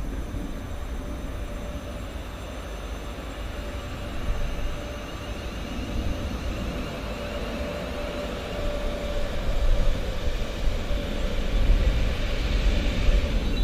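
British Rail Class 350 Desiro electric multiple unit pulling in along a station platform. Its low rumble and the hiss of wheels on rail grow louder as it nears, with a steady whine running under them.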